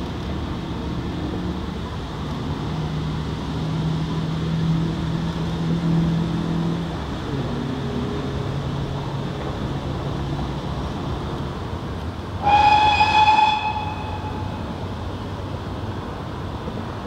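GWR 14xx class 0-4-2 tank engine 1450 working a train out of the station with a low steady rumble. About twelve seconds in it gives one whistle blast, about a second long, which is the loudest sound.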